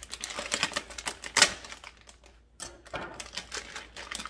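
Bag of teriyaki stir-fry being opened and handled: rapid crackling and clicking of the packaging, with a short pause about two seconds in.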